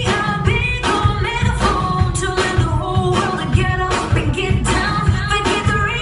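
Pop dance track with singing over a steady beat and heavy bass.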